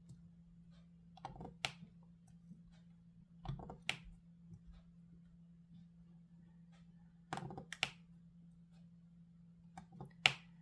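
Faint, sharp plastic clicks and taps, often in pairs, as a diamond-painting drill pen picks resin drills from a plastic tray and presses them onto the canvas. A faint steady low hum runs underneath.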